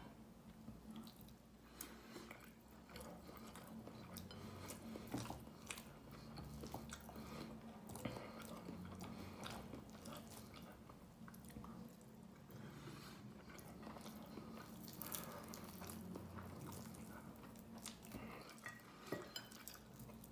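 Faint chewing and small scattered clicks and taps of fingers and food against a glass bowl as rice is scooped up by hand and eaten, over a low steady hum.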